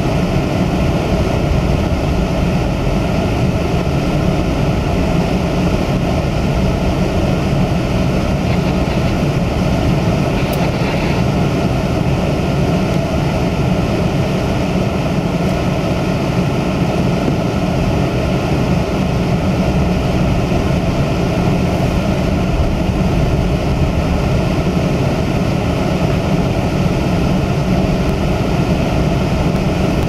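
Steady in-cabin noise of a car driving over a snow-covered road: engine and tyre noise as a low rumble with an even hiss above it.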